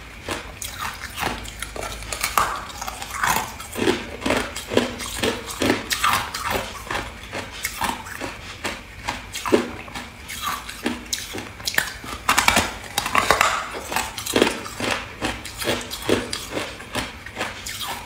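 Close-up crunching and chewing of hard ice: a steady run of sharp cracks and crunches as mouthfuls are bitten off and ground between the teeth.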